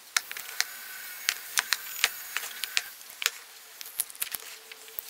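Fingers picking at and peeling sealing tape off a cardboard box: irregular sharp clicks and ticks over a faint hiss that fades after about three seconds.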